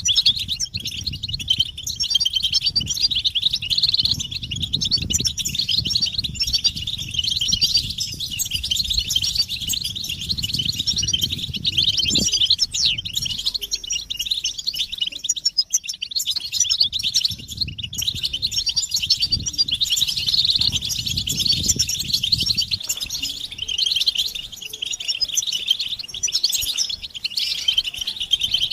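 A group of European goldfinches twittering and chattering together: a dense, unbroken stream of rapid, high tinkling notes. A low rumbling noise runs beneath it and fades out about three-quarters of the way through.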